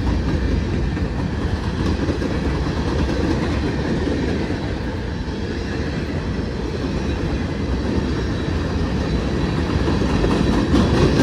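CSX freight train's cars rolling past, a steady rumble of steel wheels on the rails with a light clickety-clack.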